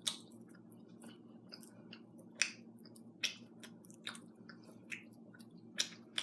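Foil wrapper of a Kinder Surprise chocolate egg crinkling in irregular short crackles as it is peeled off by hand.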